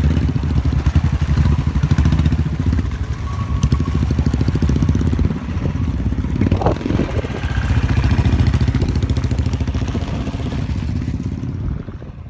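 Motorcycle engine running steadily under way, heard from the bike itself, with a brief drop in revs about five and a half seconds in and the engine easing off near the end.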